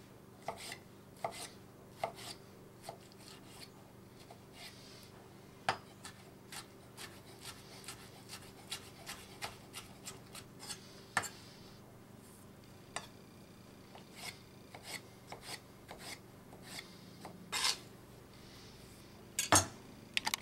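Global G55 stainless steel chef's knife chopping tomato on a wooden cutting board: a string of short, irregular knocks of the blade on the board, a few a second, some louder than others.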